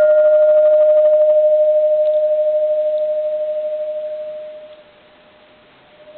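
Bronze Japanese Buddhist temple bell ringing on after a firm strike: one clear sustained tone with a slow wavering throb, its higher overtones dying away in the first second or so. The tone fades low about five seconds in, then swells back slightly at the very end.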